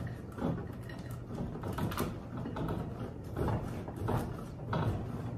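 A block of cheese being shredded on a metal box grater: a series of scraping strokes, one every half second to a second.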